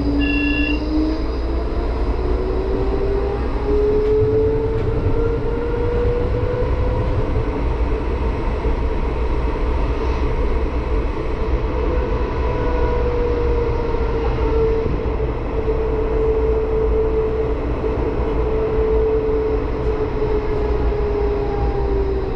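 Bombardier Flexity HermeLijn tram running along street track: its traction motors whine, rising in pitch over the first several seconds as it picks up speed and then holding steady at cruising speed, over a constant rumble of wheels on rails. A short beep sounds about half a second in.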